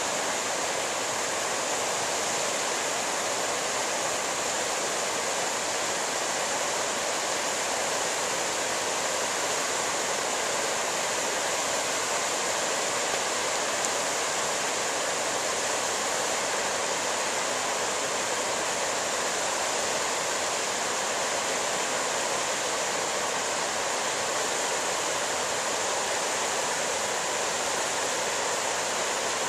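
A fast mountain river rushing over boulders in white-water rapids: a steady, even wash of water noise.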